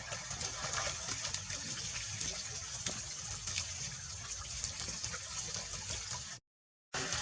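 Steady rush of water with faint clicks scattered through it; the sound cuts out completely for about half a second near the end.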